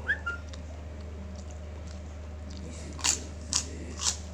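Crisp fried cracker crunched between the teeth: three sharp crunches about half a second apart near the end, over a steady low hum. A brief high squeak comes right at the start.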